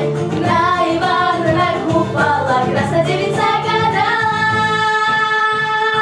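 Two girls singing a duet into microphones, the melody moving through several notes and then settling on one long held note for the last two seconds.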